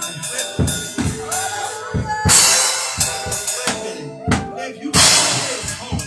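Live worship band music driven by a drum kit, with kick and snare strokes and two cymbal crashes, the first a little after two seconds in and the second about five seconds in.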